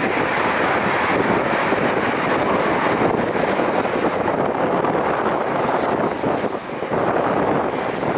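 Airbus A400M's four TP400 turboprop engines at takeoff power, a loud steady roar as the transport lifts off and climbs away, briefly dipping about six and a half seconds in.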